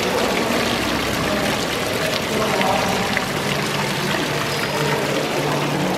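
Steady splash and trickle of running water, constant through the whole stretch.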